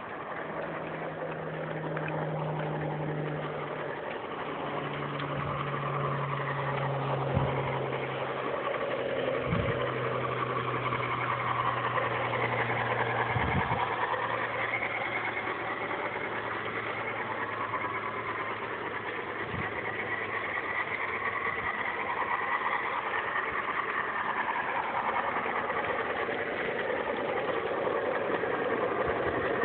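Large-scale model Shay locomotives running around a garden railroad's trestle track: a steady mechanical running noise with a low hum that steps down in pitch, and a few soft knocks.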